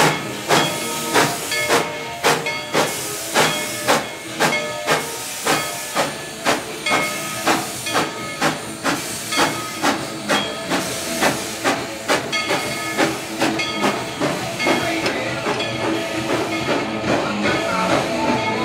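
Steam locomotive's exhaust chuffing as it gets under way, the chuffs quickening from a little under two a second to about two and a half, then blurring into a steady hiss near the end.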